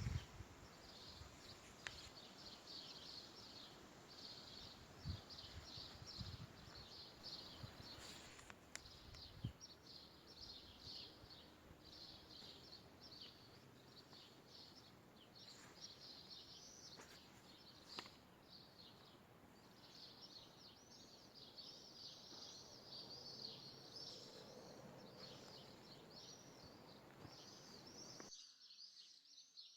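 Many small birds chirping continuously, faint, with a few soft clicks; the sound cuts off abruptly near the end.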